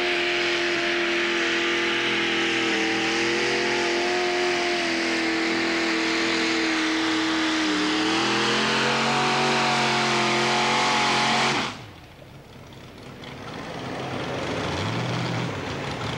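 Modified mini pulling tractor's engine running at high revs under load as it pulls the sled, holding a steady high pitch that dips and then climbs again about eight seconds in. The sound cuts off abruptly about twelve seconds in, and a lower, quieter engine hum comes up after it.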